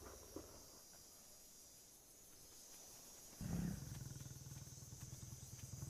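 Lion growling: a low, rapidly pulsing rumble that starts suddenly about three and a half seconds in and keeps going.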